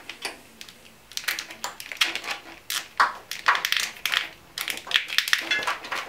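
Corrugated plastic split-loom conduit around a wiring harness crinkling and clicking as it is handled and bent, a rapid irregular run of sharp clicks and rustles.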